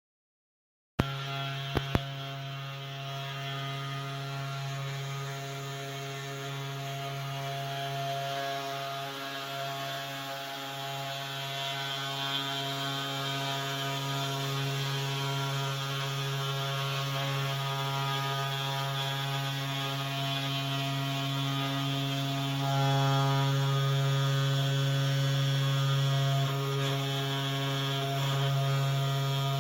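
CNC 3018 Pro desktop router running while cutting thin plywood, a steady motor hum with a stack of whining tones from its spindle and stepper motors. It starts about a second in with a couple of sharp clicks, and gets louder for a few seconds near the end.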